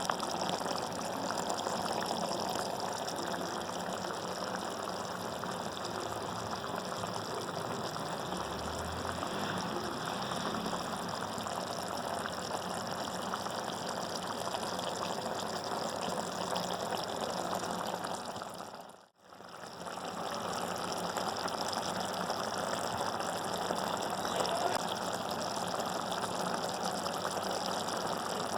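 Food cooking on the stove: a steady watery hiss. About two-thirds of the way through it fades out briefly and then comes back.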